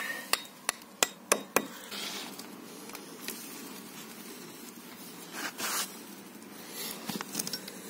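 Hammer tapping a plastic wall plug into a hole drilled in a masonry wall: sharp taps about three a second, stopping about a second and a half in. A short scraping rustle follows a little past halfway.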